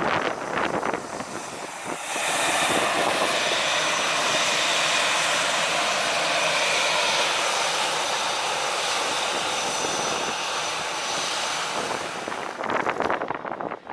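Jet airliner engines running with a steady, loud rush of noise that starts suddenly about two seconds in and drops away near the end, with gusty wind noise on the microphone around it.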